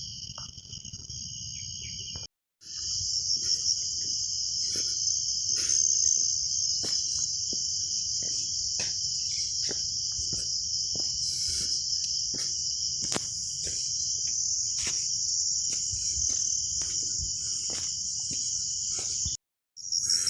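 Steady, high-pitched shrilling of a chorus of insects, with scattered soft clicks and knocks underneath. It cuts out abruptly for a moment about two seconds in and again near the end.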